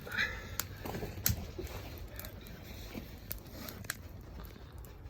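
Wood fire crackling, with irregular sharp pops a second or so apart.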